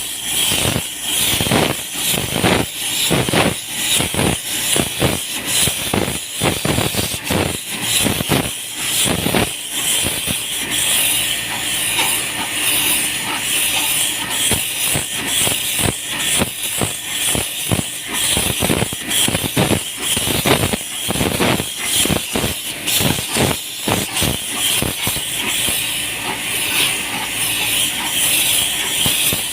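High-pressure water spray hissing against an air conditioner's outdoor unit, its loudness rising and falling irregularly.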